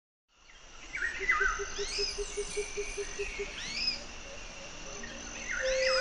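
Tropical wildlife ambience fading in: birds calling with repeated arching chirps, over a steady high insect drone and a low call pulsing about six times a second for the first few seconds. A flute note comes in near the end.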